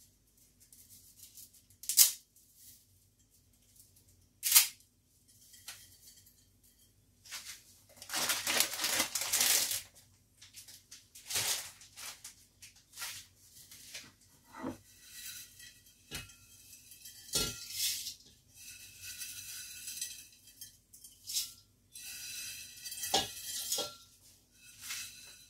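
Dry spaghetti snapped by hand: sharp single cracks about every two seconds at first, then a rustling stretch, then scattered light clinks and knocks of a glass bowl against a metal pot as the broken pasta is tipped in.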